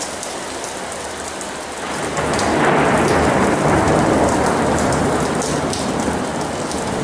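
Thunderstorm: heavy rain falling steadily, with a rumble of thunder rising about two seconds in and staying loud for several seconds.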